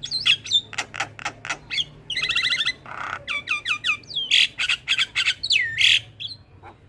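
Javan myna singing a fast, varied song: sharp clicks, a quick run of repeated chattering notes, a harsh rasping note about three seconds in, then falling and swooping whistled notes.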